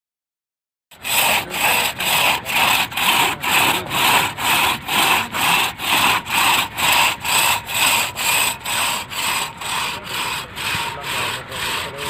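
Hand saw cutting back and forth through the green trunk of a felled semal (silk-cotton) tree, a steady rhythm of nearly three rasping strokes a second. It starts after about a second of silence, and the strokes grow a little quieter near the end.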